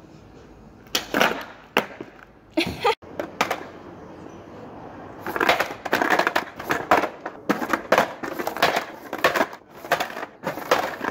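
Skateboard knocking and clattering on hard pavement during ollie and shove-it attempts: a few sharp knocks in the first seconds, then from about halfway a fast run of knocks and clacks as the deck is kicked, spins and slaps down on its wheels.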